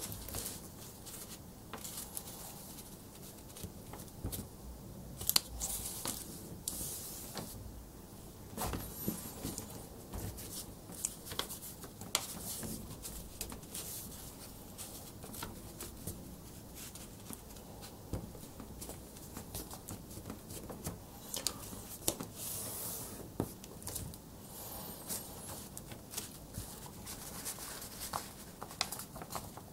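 A sheet of A4 paper being folded and creased by hand: irregular rustles and crisp crinkles as it is bent and pressed flat, with soft scrapes of fingers and paper on the table.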